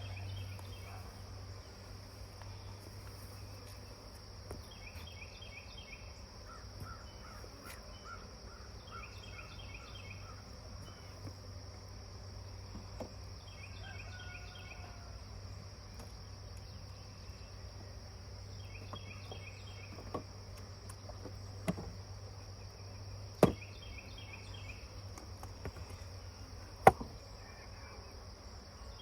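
Outdoor insect and bird ambience: a steady high insect drone, with short chirping phrases repeating every few seconds. Four sharp knocks fall in the second half, the loudest near the end.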